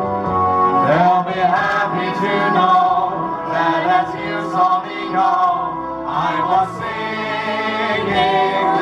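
A group of singers, women and men, singing a 1940s wartime song together with musical accompaniment.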